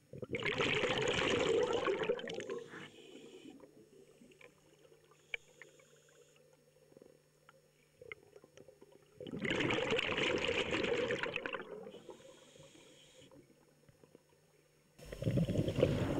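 A scuba diver's exhaled air bubbling out of the regulator underwater, in two bursts about nine seconds apart, each lasting about two seconds and fading away. Near the end a song with singing starts.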